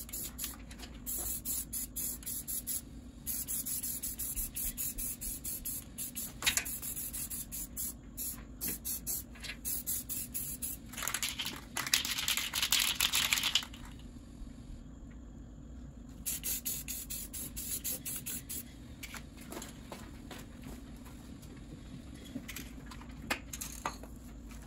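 Aerosol spray-paint can hissing in many short bursts, with one longer spray of about three seconds a little past the middle, as a first coat of paint goes on a mower deck.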